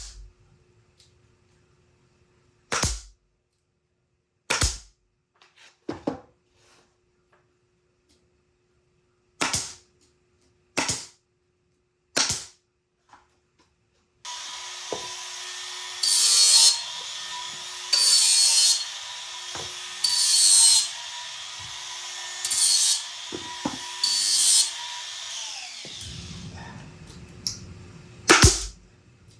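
Pneumatic brad nailer firing into plywood: single sharp shots a second or two apart, about seven in the first half and one more near the end. About halfway in, a stretch of steady hissing with several louder surges runs for some twelve seconds.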